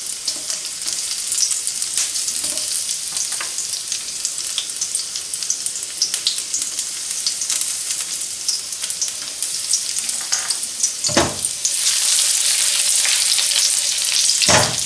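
Sliced garlic sizzling in hot olive oil in a wok, a steady crackling hiss that gets louder about twelve seconds in. Two dull knocks come about three seconds apart near the end.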